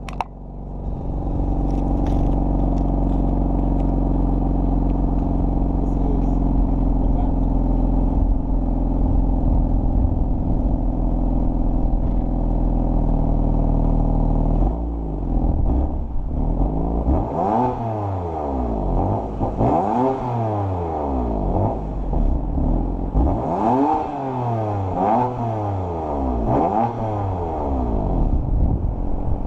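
BMW M4's twin-turbo inline-six through a new M Performance exhaust muffler, idling steadily for about fifteen seconds, then revved repeatedly, the exhaust note rising and falling several times.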